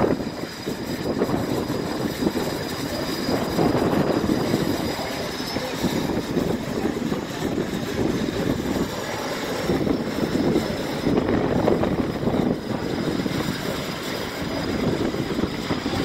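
Approaching military aircraft's engines heard over the open sea as a steady, unbroken rumble that grows toward the end as it closes in low over the carrier deck.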